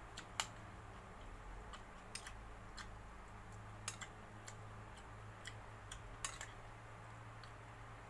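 A metal spoon clicking against a glass bowl now and then while eating, about a dozen light, irregular clicks, over a steady low hum.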